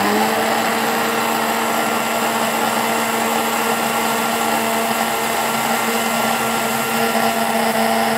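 Electric blender motor running steadily, blending cucumber and water into juice, with a constant motor whine throughout.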